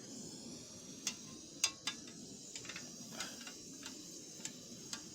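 Portable gas stove burner hissing steadily, with about seven light clicks and knocks as the pot of water is shifted and held on the unlevel stove.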